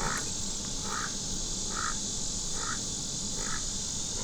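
A short outdoor animal call repeated evenly about once a second, five times, over a steady high insect drone.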